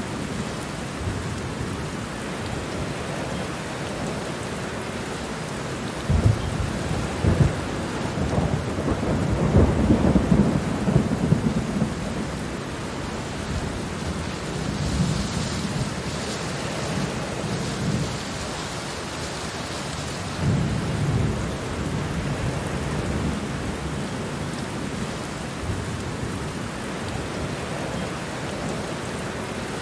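Steady rain falling with thunder rumbling, the deepest, loudest roll starting about six seconds in and running to about twelve seconds, and a shorter rumble about twenty seconds in.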